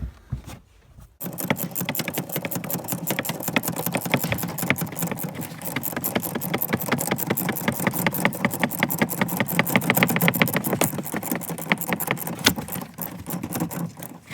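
Rapid, steady mechanical clicking of a hand ratchet wrench being worked, starting about a second in.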